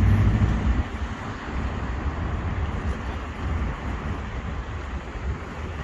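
Wind buffeting the microphone: a heavy low rumble in the first second, easing into a steady rushing noise.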